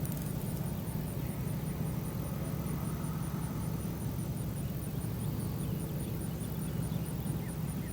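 Outdoor ambience after the storm siren has wound down: a steady low hum with a faint, evenly repeating high ticking, and a few faint bird chirps near the end.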